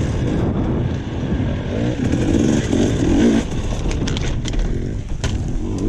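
KTM dirt bike's two-stroke engine revving up and down as it climbs a rocky trail. A few sharp knocks come in the second half.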